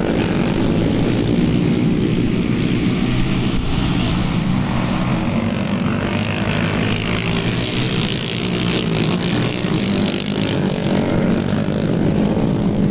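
A pack of racing lawn mowers running flat out around a dirt oval: several small engines drone together steadily, with wind noise rumbling on the microphone.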